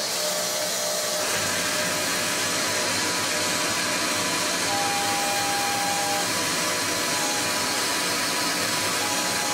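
Tormach 15L Slant Pro CNC lathe spindle starting about a second in, then running steadily with a whirring hiss as it turns a small titanium bar for drilling. A brief steady tone sounds midway.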